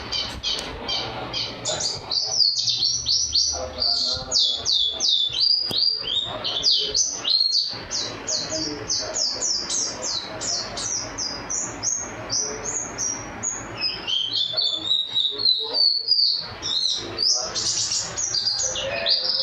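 A pleci (white-eye) songbird singing a long, unbroken song of rapid, short high notes, several a second, filled with canary-like phrases.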